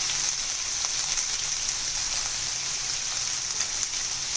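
Chopped onion sizzling in hot oil in a non-stick frying pan: a steady hiss with faint crackles, just after the onion goes in.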